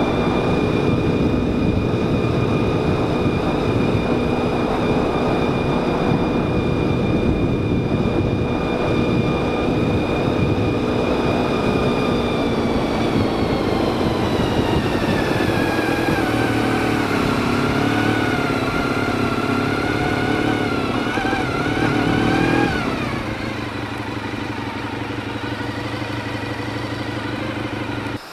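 Motorcycle engine heard from on board: it runs at a steady pitch, then about halfway through the note falls and wavers as the bike slows. Near the end it drops suddenly to a lower, quieter steady note.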